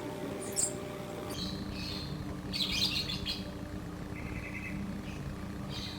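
Javan myna (jalak kebo) calling in a run of harsh chirps and squeaky notes, the loudest burst about halfway through and a short buzzy rattle near the end, over a faint steady hum.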